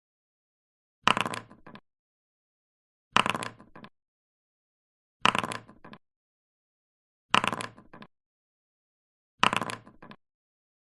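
Dice being thrown and rolling, five times about two seconds apart. Each throw is a sharp clatter that tails off in a few quick bounces, the same roll repeated each time, with dead silence between.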